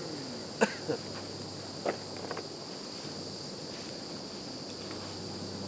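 Insects chirring steadily at a high pitch, with a sharp click about half a second in and a few brief short sounds around two seconds in.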